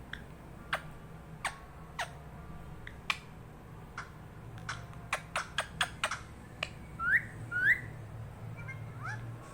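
A pet parrot making short, sharp chirps and clicks, spaced out at first and then coming quickly in a cluster. About seven seconds in, it gives two loud, rising whistles.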